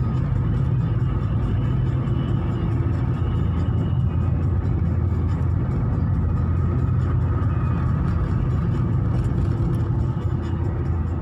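Steady low rumble of a car on the move, with engine and tyre-on-road noise heard from inside the cabin.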